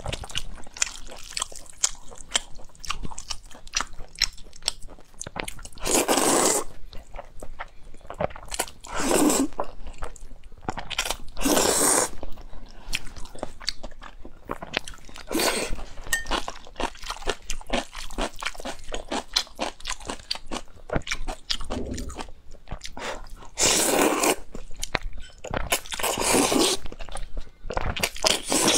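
A person eating noodles close to the microphone: steady wet chewing clicks, with a louder slurp of noodles every few seconds, about seven in all.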